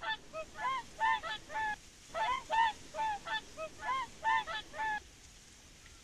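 A flock of whooper swans calling: short bugling honks from several birds, overlapping, roughly three a second, stopping about five seconds in.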